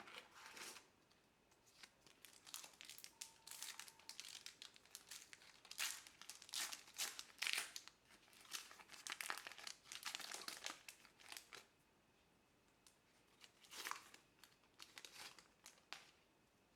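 Trading card pack wrappers crinkling and tearing as packs are opened, in irregular bursts with brief pauses.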